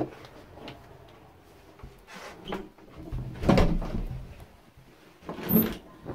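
Handling noise from a handheld camera being carried around a house, with knocks and an interior door being handled; two louder thuds come about three and a half and five and a half seconds in.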